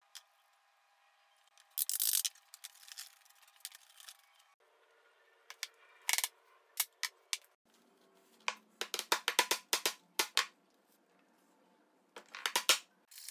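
Sharp knocks and clicks as wooden parts and bar clamps are handled and fitted together, with a quick run of a dozen or so clicks about two-thirds of the way through.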